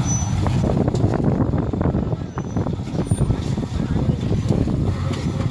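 Lifted pickup truck's engine running at crawling speed, a steady low rumble, as its tyres climb over a pile of logs and concrete blocks.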